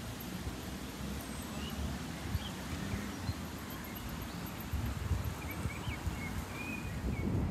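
Outdoor park ambience: a steady low rumble, with a few short, high bird chirps scattered through, most of them in the second half.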